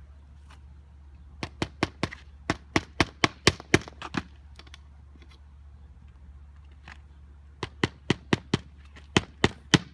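Hammer driving roofing nails through a replacement shingle: two runs of quick, sharp strikes, about four a second, the first a dozen blows long, the second starting about seven and a half seconds in.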